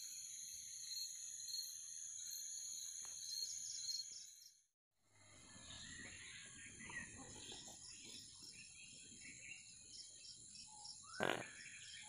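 Crickets and other night insects trilling in steady high, even tones, with a pulsing chirp. After a brief gap, faint scattered bird calls sound over the insects' continuing high hum.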